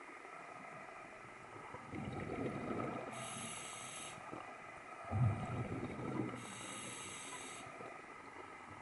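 A scuba diver breathing through a regulator underwater: two rumbling bursts of exhaled bubbles about three seconds apart, the second louder, each followed by a short hiss.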